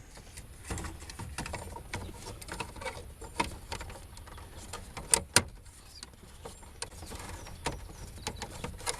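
Plastic dashboard trim pieces being handled and pressed into place, with scattered light clicks and knocks and two sharp snaps close together about five seconds in, as the clips seat.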